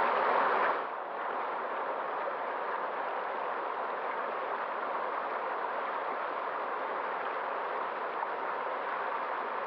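Steady rushing of running water, an even hiss with no distinct events, dropping a little in level about a second in and then holding steady.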